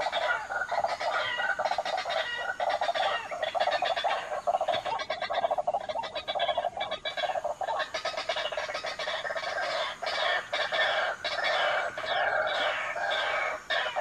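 Game-bird lure calls: rapid, continuous clucking and croaking calls repeating several times a second, used to draw in junglefowl and waterhens.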